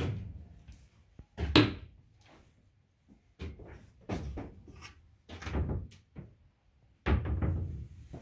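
A series of about six short bumps and knocks, the loudest about a second and a half in.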